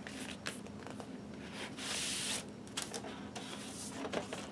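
A paper lyric sleeve being slid out of a cardboard LP record jacket and handled: a hissing slide of paper on card about two seconds in, with light rustles and taps of paper and cardboard around it.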